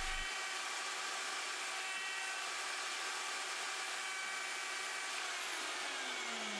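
Electric plunge router running at speed with a steady whine while routing a slot into the wall of a dowel hole in a wooden chair rail. Some of its tones slide lower near the end.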